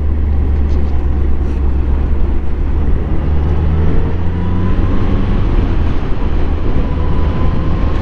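Suzuki Bandit motorcycle on the move: its inline-four engine runs under a steady, heavy rush of low wind and road noise, and the engine note climbs gradually through the second half.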